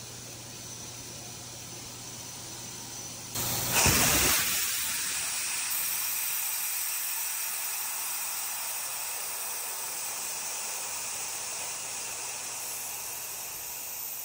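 Twin-tower desiccant air dryer blowing off through its exhaust silencers: about three and a half seconds in, a sudden loud blast of escaping air as the blow-off valve opens and the regenerating tower drops to atmospheric pressure, settling into a steady hiss of purge air that slowly weakens. Before the blast there is only a faint steady hiss over a low hum.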